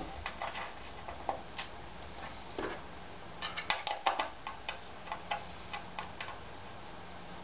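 Light, irregular metal clicks and taps from small bolts, washers and a hex key being handled and set on a G10 sub-bed plate, with a quick run of clicks about three and a half to four and a half seconds in.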